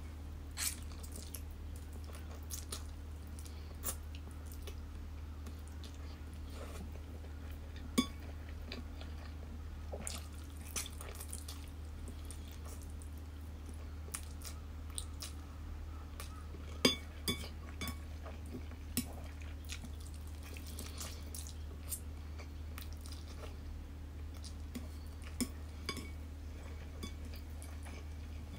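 Faint eating sounds of someone slurping and chewing instant noodles, with scattered short clicks of chopsticks against a bowl, over a steady low hum.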